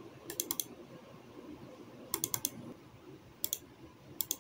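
Computer keyboard keys tapped in short clusters of clicks: a group of about four near the start, another four about two seconds in, then two pairs near the end.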